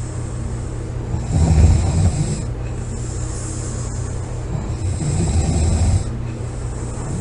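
A sleeping person snoring loudly, two snores about three and a half seconds apart, over a steady low background hum.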